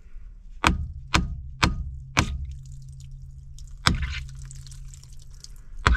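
Claw hammer knocking on the lug of a cast-iron sewer cleanout plug to break it loose: four sharp metallic knocks about half a second apart, one more a couple of seconds later, then a quicker run of blows beginning near the end. The line behind the plug is backed up and under pressure.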